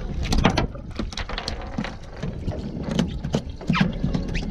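Small boat rocking on choppy water: a low wind rumble and water slapping the hull, with scattered sharp knocks and clicks on the boat.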